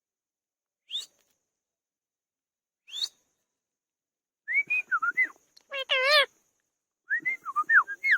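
Indian ringneck parrot calling: two short rising whistles, then a quick run of whistled notes that rise and fall, a louder wavering call about six seconds in, and another burst of whistled notes near the end.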